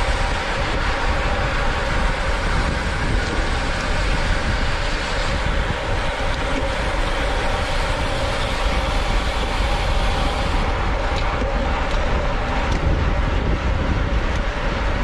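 Wind buffeting the microphone of a camera on a racing road bike at speed: a loud, steady rush with a heavy low rumble. Under it is the constant noise of the bike rolling along the road, with a faint steady hum.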